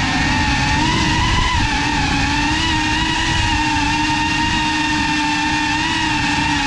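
GEPRC CineLog35 cinewhoop drone's motors and propellers whining at a fairly steady pitch that wavers slightly as the throttle shifts, over rumbling wind and prop-wash noise on the onboard GoPro's microphone.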